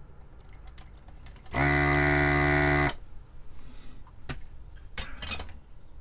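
A handheld desoldering gun's vacuum pump running for about a second and a half as its trigger is pulled, a loud steady buzz sucking molten solder off a voltage regulator's pins. The owner says the pump's diaphragm is starting to fail. A few light clicks and clatter follow as the circuit board is handled.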